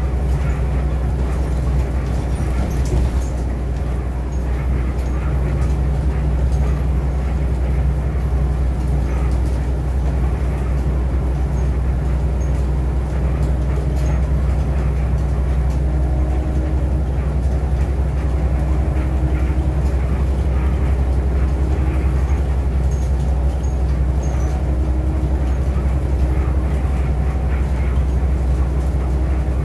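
Inside a city bus cruising along a freeway: a steady low engine drone mixed with road and tyre noise through the cabin.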